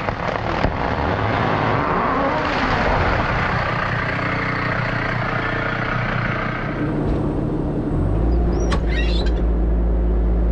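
Bobcat T650 skid-steer loader's diesel engine running at work, its low drone steadying and growing stronger about eight seconds in, with a couple of brief high squeaks just after.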